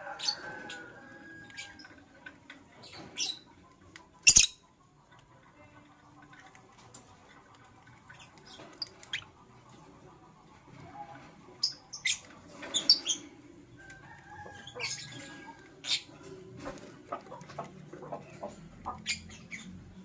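Masked lovebirds giving short, scattered high chirps and squeaks, loudest in a quick cluster a little past the middle, with one loud sharp click about four seconds in.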